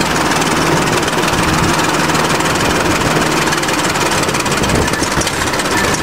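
Old crawler dozer's diesel engine running steadily with a dense mechanical clatter, as it is clutched into first gear and starts to creep forward.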